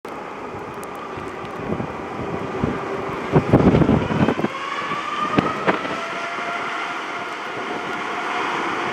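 Boeing 787-10's General Electric turbofan engines at takeoff power as the jet rolls down the runway: a steady rush with a whine that rises in pitch, growing louder throughout. Gusts of wind buffet the microphone about three and a half to four and a half seconds in.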